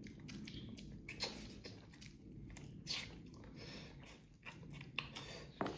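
A person chewing food close to the microphone, with wet mouth sounds and a few short, irregular clicks.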